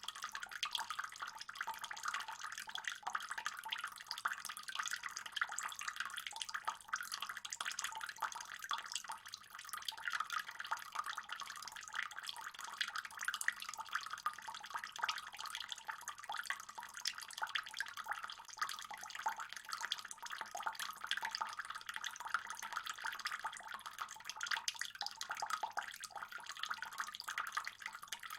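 Water trickling and splashing steadily into a fish pond, a continuous patter of many fine drops.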